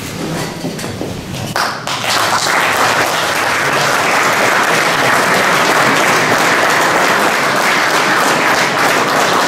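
Audience applauding, coming in about a second and a half in and going on steadily.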